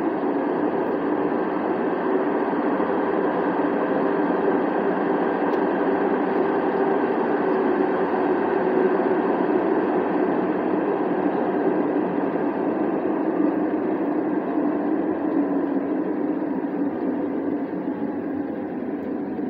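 Steady running noise heard inside an O-Train Line 1 Alstom Citadis Spirit light rail car travelling through a tunnel: a continuous rumble of wheels and motors that grows a little quieter near the end.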